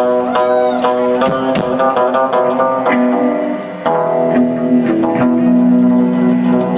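Live rock band playing loudly: amplified electric guitars, one a hollow-body, over bass guitar and drums.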